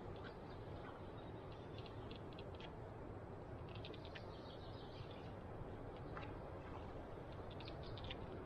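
Faint steady outdoor background noise, broken by a few brief clusters of quick high ticks or chirps.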